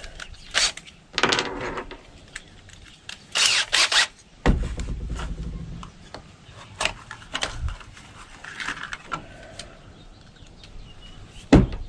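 Handling noise from screws and a cordless drill being picked up and set in place: scattered clicks, knocks and short rustles, with one sharp knock near the end.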